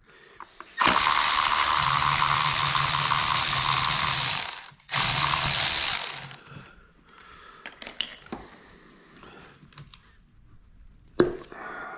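Power ratchet running in two runs, about three and a half seconds and then about a second, backing out the 10 mm bolt that holds an ignition coil pack; faint clicks of handling follow.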